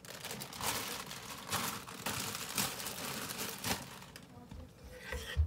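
Plastic bag of chopped kale crinkling as it is handled, with a few sharper crackles, for the first few seconds. A dull knock comes near the end.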